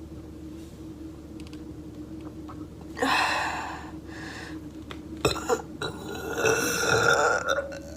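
A woman burping, brought on by drinking water: one short burp about three seconds in, then a longer, drawn-out belch with several surges from about five seconds in.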